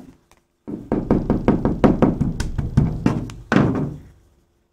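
Quick run of knocks on a fiberglass canoe hull, about six a second, with one last louder knock near the end. The hull is being sounded out for soft, rotted spots around a hole.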